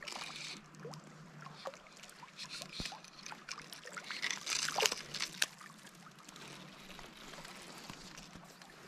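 Shallow creek water trickling and rippling, with scattered light clicks and rustles close by, the strongest about four to five and a half seconds in.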